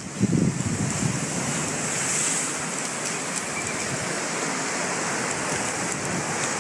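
Steady rushing noise of wind and sea surf, with low wind buffeting on the phone's microphone in the first second.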